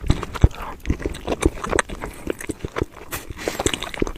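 Close-miked wet chewing and lip smacks of someone eating Kayseri yağlama: a quick, irregular run of soft mouth clicks and smacks.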